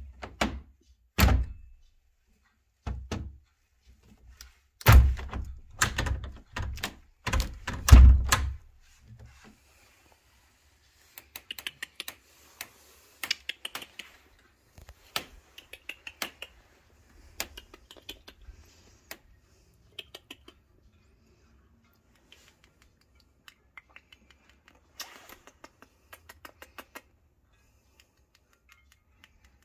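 A run of heavy thuds and knocks in the first nine seconds, then scattered light clicks and ticks.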